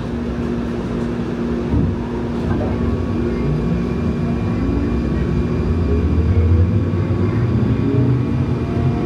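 Siemens S70 light rail vehicle pulling away from a station, heard from inside the car: the traction motors' whine rises steadily in pitch as the train accelerates, over a steady hum and a low rumble that builds toward the end.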